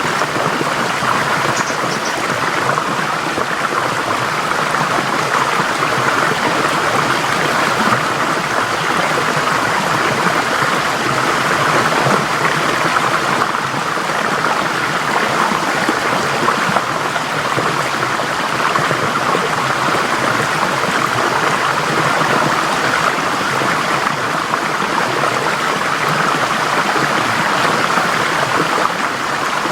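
Forest stream flowing steadily over rocks, an even, continuous rush of water.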